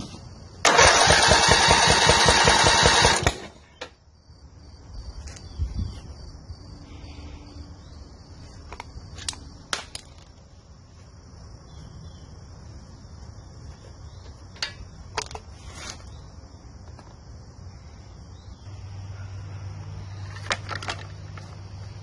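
Zero-turn mower engine cranking over on its electric starter for about three seconds without firing, with a compression gauge screwed into a spark plug hole for a compression test. A few short clicks and knocks of hand tools follow.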